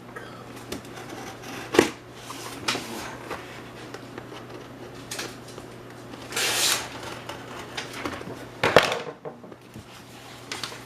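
Hands opening a small mail parcel: packaging handled and rustled, with scattered sharp clicks and taps, a longer scraping rustle about six seconds in, and two louder sharp snaps, one near the start and one near the end.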